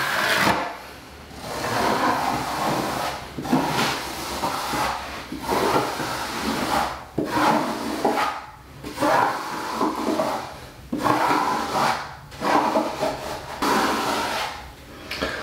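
Metal taping knife scraping and smoothing wet liquid waterproofing membrane (Laticrete Hydro Ban) along the shower curb, in about ten strokes of a second or so each.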